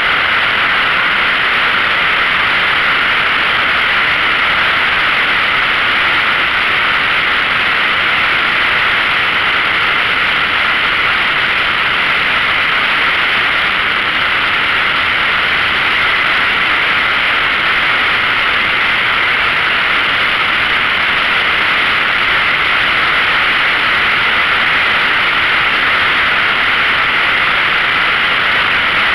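Steady wind rush over the microphone of a motorcycle riding at a constant speed, with the Yamaha XVS1300A Midnight Star's V-twin running beneath the wind noise.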